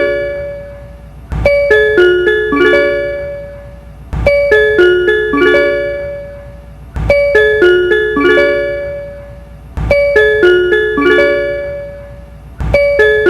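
Kansai Airport Rapid train's on-board chime for intermediate stations: a short run of bell-like notes stepping down in pitch, looped so that it repeats about every three seconds. Each repeat opens with a sharp click.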